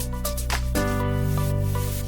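Background music: sustained electronic chords over a steady beat, changing chord about three-quarters of a second in, with a rising swell near the end.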